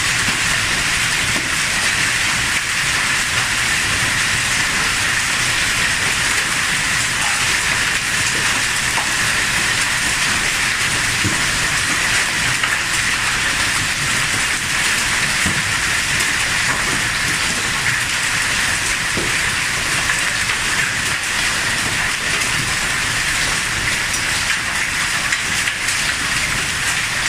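Hailstorm: hail and heavy rain pelting down in a dense, steady hiss with faint scattered ticks.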